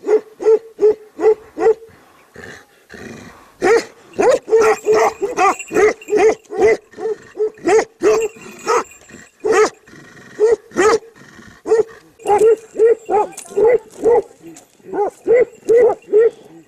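Tibetan mastiff barking repeatedly on its chain, in quick runs of barks about three a second broken by short pauses.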